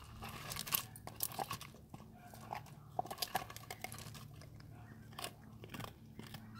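A dog chewing a hard chew: irregular crunching bites and clicks of teeth, over a faint steady hum.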